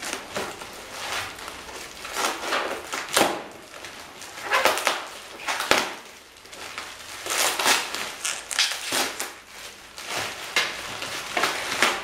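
Plastic bubble wrap crinkling and crackling in irregular bursts as it is pulled off a glass hookah base by hand.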